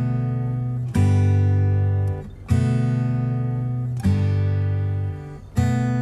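Background music: strummed guitar chords, a new chord about every second and a half, each left to ring out.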